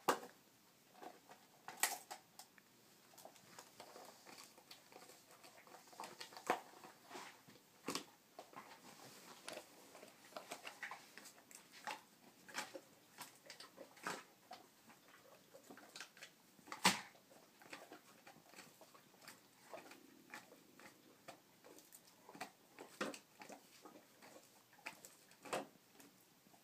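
A basset hound gnawing a rawhide chew bone: irregular wet crunches and bites, with a few sharper cracks.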